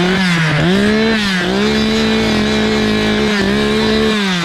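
Two-stroke Echo chainsaw revved to full throttle. It climbs quickly and holds a steady high pitch, with two brief dips in revs, then drops back toward idle near the end.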